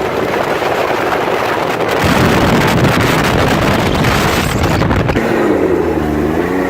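Can-Am Maverick X3 side-by-side driving, with wind rushing over the microphone that grows stronger about two seconds in. Near the end the engine comes through clearly, its pitch rising and falling as it revs.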